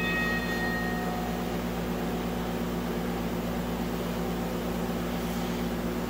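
The toy railroad crossing signal's electronic bell stops, its last tones fading within the first second. After that only a steady low mechanical hum remains.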